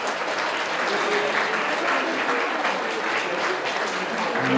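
Crowd applauding, dense steady clapping with a few voices mixed in. Music comes in right at the end.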